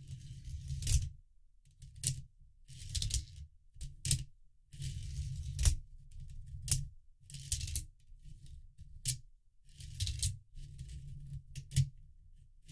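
Coins clicking and clinking one at a time as a hand turns the feeder disc of a 3D-printed plastic coin sorter, each coin dropping into the sorting ramp, about once a second, with a low rubbing rumble between the clicks.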